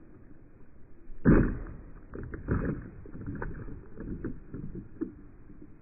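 A plastic water bottle, just hit by a pellet, toppling onto a weathered wooden board, slowed down with the slow-motion picture. There is a heavy thud about a second in, then a run of smaller knocks as it settles and rolls, all deep and dull with no high end.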